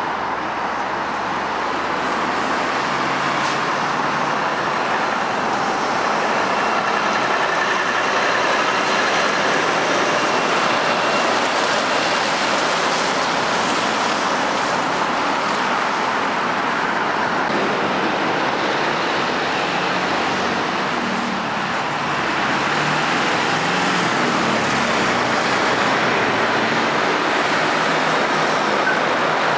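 Heavy road traffic going round a roundabout: the steady noise of lorry diesel engines and tyres as a loaded car transporter and articulated lorries pass, with a van and cars among them.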